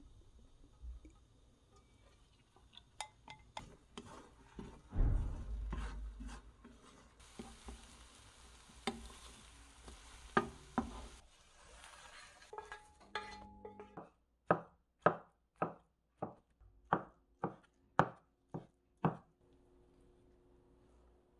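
Beaten egg going into a hot oiled nonstick pan and scrambled with a spatula. About five seconds in there is a low thud as the egg lands, then sizzling and scraping for several seconds. Then comes a run of about ten sharp spatula strikes, about two a second, as the cooked egg is broken up.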